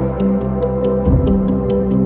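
Ambient background music: sustained, droning chords over a light ticking beat, with a soft low thump about a second in.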